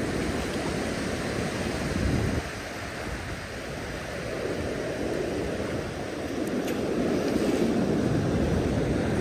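Surf washing up over wet sand at the water's edge, a steady rush that grows louder in the last couple of seconds, with some wind on the microphone.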